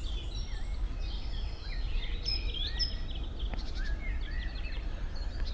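Several songbirds chirping and whistling in short, overlapping calls over a low, steady background rumble.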